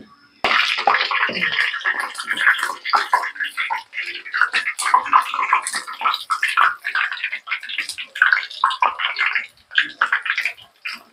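Lentil fritters (pappu vadalu) sizzling and crackling in hot deep-frying oil, starting suddenly about half a second in.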